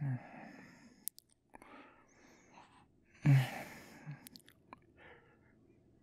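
A man's sleepy waking sounds, close to the microphone: a short low voiced exhale at the start and a louder one a little past three seconds in that trails off into breath, with soft breathing and a few small mouth clicks between.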